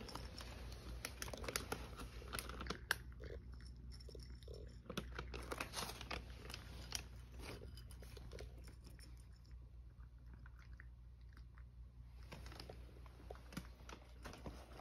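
A cat crunching and chewing dry treats from a plate: a quick, irregular run of small crunches that thins out about halfway through.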